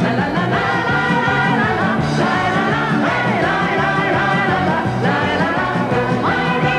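Upbeat pop song: a woman singing over a band with a steady beat.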